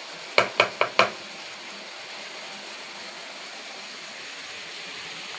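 Four quick, sharp knocks of a kitchen utensil on cookware in the first second, then a steady faint hiss.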